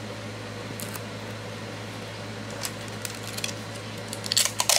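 Steady low hum of room noise with a few faint light clicks, then near the end a brief, louder scratchy rustle of hands handling the plastic enclosure and its fittings.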